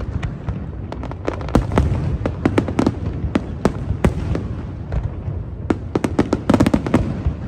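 Fireworks display: a rapid, irregular run of bangs and crackling pops over a continuous low rumble, with a dense cluster of bangs about six to seven seconds in.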